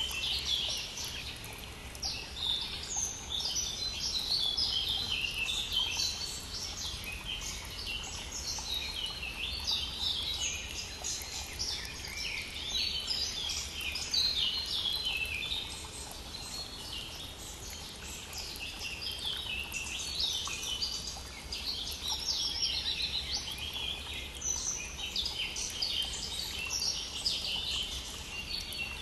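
A dawn chorus of many songbirds singing continuously, their chirps and trills overlapping, over the faint steady rush of a stream.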